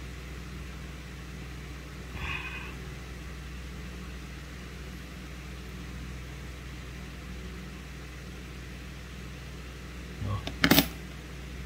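Steady low background hum, with one sharp metallic click near the end from steel nail nippers working at a fingernail.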